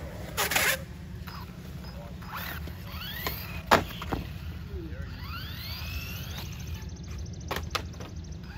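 Small electric RC truggy's motor whining up in pitch twice as it accelerates, over a steady low rumble, with one loud sharp clack about midway and a few lighter clacks near the end.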